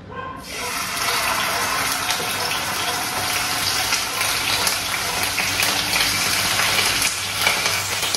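Raw chicken pieces sizzling in hot sunflower oil in a frying pan. The sizzle starts suddenly as the first piece goes in, builds over the first second, then holds steady with scattered crackles of spattering oil.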